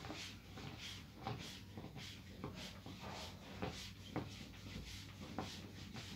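Fabric rustling and rubbing in repeated short strokes, about one or two a second, as a nylon abaya is handled and smoothed.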